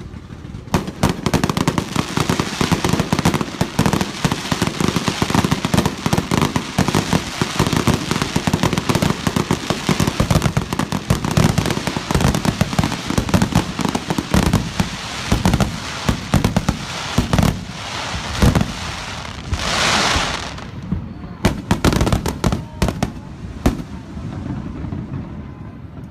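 Fireworks finale barrage: a dense, continuous volley of bangs and crackle from many shells bursting at once. In the last third it thins to separate bangs, with a hiss lasting about a second in between.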